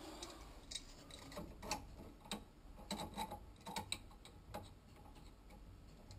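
Faint, irregular small metallic clicks and ticks as a chrome pipe fitting is handled and screwed onto a copper pipe by hand.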